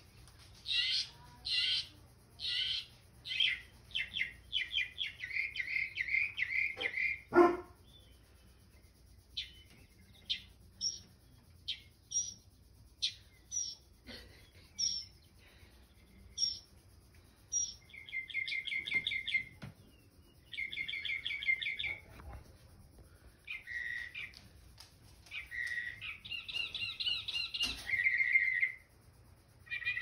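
Sparrows chirping through a television speaker, in single short high chirps and quick rattling runs of calls. One short, louder call comes about seven seconds in.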